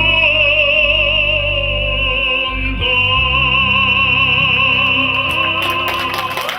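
Live music: a solo melody of long held notes with wide vibrato over a steady low accompaniment, moving to a new note about three seconds in.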